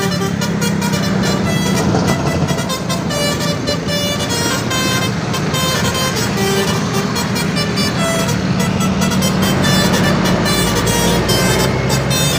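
Large diesel bus engine running with a steady low drone, with short horn toots sounding over it.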